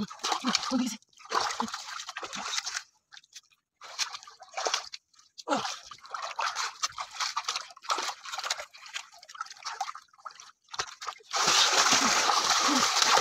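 Muddy water splashing and sloshing in the flooded bottom of a wooden boat as hands grope through it for fish, in irregular bursts, with a long, heavy splash near the end.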